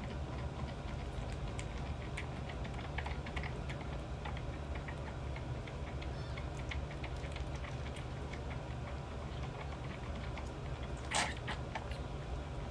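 Young kitten suckling milk from a nursing bottle: a steady run of small irregular clicks and smacks from its mouth working the nipple, over a low steady hum, with one brief louder noise about eleven seconds in.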